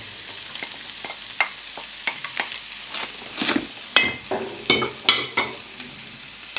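Chicken, onion and mushrooms frying in a nonstick pan on a gas burner: a steady sizzle with crackling pops as chopped peppers go in. A few sharp clinks and knocks come about halfway through.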